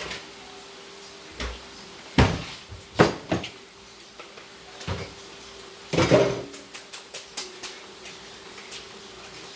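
Spoon knocking and scraping in a cooking pan as vegetables are stirred: a run of sharp clatters, loudest about two, three and six seconds in, then a few lighter clicks. A faint steady hum runs underneath.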